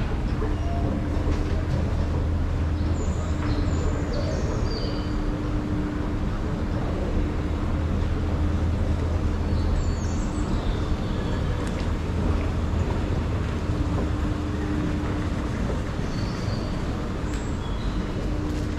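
Steady low rumble and hum of a running vehicle, with a held mid-pitched tone that fades in and out. A few short, high chirps are scattered through it.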